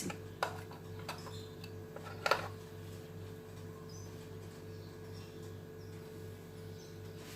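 Quiet kitchen with a steady low hum and a couple of light clicks of a utensil against a dish, about half a second and two seconds in.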